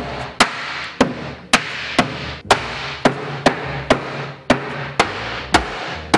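A mallet striking a solid walnut tabletop again and again, about two blows a second, knocking the top down to seat it on the credenza case. Background music plays underneath.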